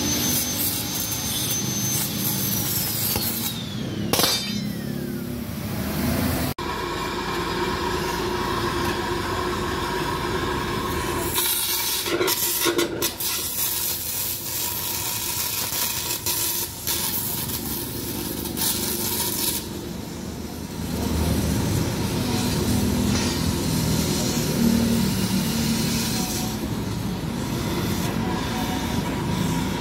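Gas cutting torch burning with a steady hissing rush as its flame cuts through the inner baffle of a motorcycle muffler. The noise changes abruptly a few times.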